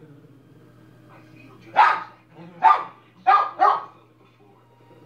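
A small dog barking four times: the first bark just under two seconds in, then three more in quick succession.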